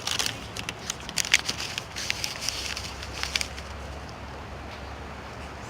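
A run of small clicks and knocks, then from about two and a half seconds in the steady low hum of the Toyota RAV4's engine running.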